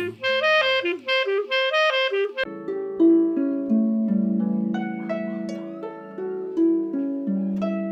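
A clarinet plays a quick phrase of short notes. About two and a half seconds in it cuts off and a harp takes over, plucking low notes that ring on and overlap.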